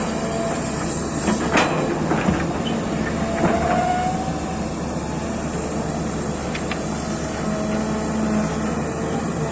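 Heavy excavator running steadily at work, with a few sharp metallic clanks in the first few seconds.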